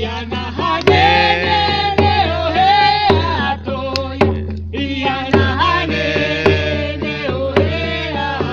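A chant sung over a drum beaten at a steady pulse of roughly one stroke a second, the sung line held in long, bending notes.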